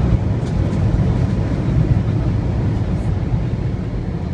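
Steady low rumble inside an airliner's cabin during landing, easing slightly towards the end.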